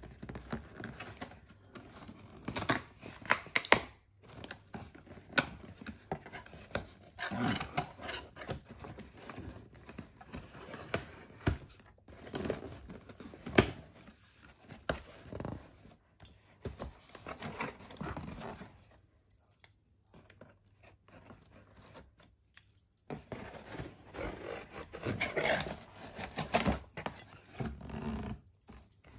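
Packing tape on a cardboard box being slit with a metal nail tool and ripped away, then the cardboard flaps pulled open: irregular scraping, ripping and sharp taps, with a quiet pause about two-thirds through.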